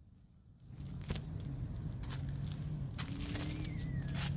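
A cricket chirping in a fast, even pulse, about five chirps a second, over a low steady hum that comes in under a second in, with a few scattered clicks.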